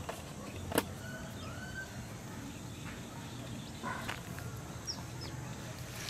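Quiet outdoor ambience: a low steady background with a few faint, short bird chirps and one sharp click about a second in.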